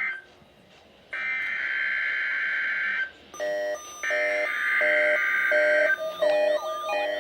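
NOAA Weather Radio SAME header tones for a Required Weekly Test: harsh buzzing data bursts about two seconds long, separated by one-second pauses. One ends right at the start, one runs from about one second in, and a third starts about four seconds in. From about three seconds in, another alarm beeps over them in a repeating pattern, turning into a warbling, siren-like sweep near the end.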